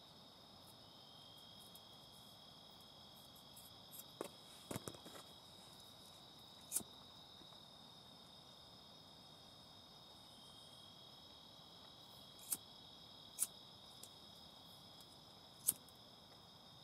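Night insects singing in a steady chorus of two high, unbroken trills, with a third, lower trill slurring in twice. A few sharp taps break through: a small cluster about four seconds in, then four single ones later.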